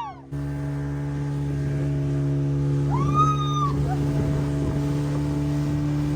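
Motorboat engine running at a steady speed. About three seconds in comes one brief high-pitched cry that rises and falls.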